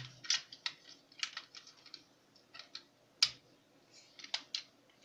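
Hard plastic parts of a Tobot transforming toy car clicking and snapping into place as it is folded into car form: a string of irregular sharp clicks, the loudest about three seconds in.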